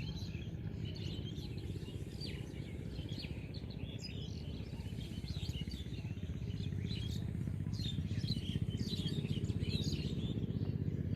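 Small birds chirping and calling over and over, many short calls overlapping, over a steady low rumble.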